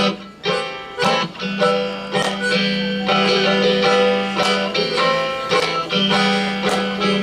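Live plucked-string instruments playing an instrumental song intro in E minor: a run of picked notes over a steady, held low note that drops out briefly near the start and again about five and a half seconds in.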